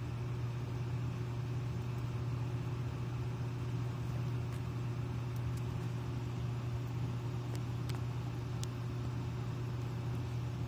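A steady low mechanical hum, like a motor or fan running, with a few faint sharp clicks around the middle.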